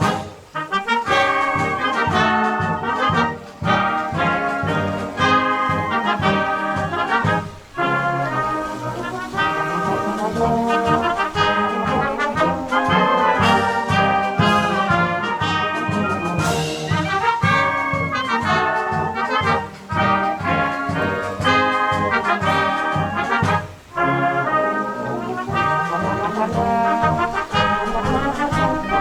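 A concert wind band playing a march, with brass carrying the melody over a steady march beat from the bass and percussion, pausing briefly between phrases.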